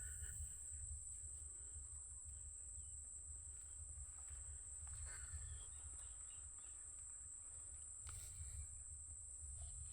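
Steady high-pitched chorus of insects such as crickets, droning without a break, over a low rumble.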